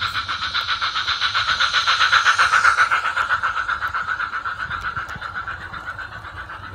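Garden-scale model train, a small tank locomotive with coaches, running past close by with a rapid, even beat. It grows louder to a peak about two and a half seconds in as the locomotive passes, then fades as the coaches go by.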